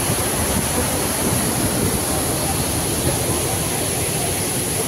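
Waterfall in flood: a heavy volume of water pouring down the rock face and rushing through the rapids below, a steady, even rushing noise.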